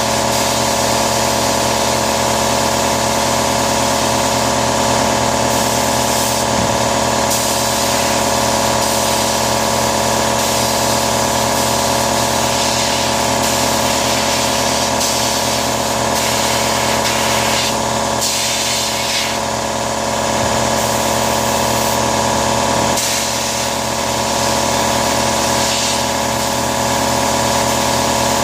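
Sandblaster running on compressed air: a steady hiss of air and sand that shifts now and then as the blasting changes, over a constant motor hum.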